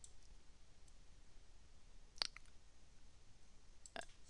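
Computer mouse clicks over quiet room tone: a sharp click about two seconds in with a fainter one just after, and another click near the end.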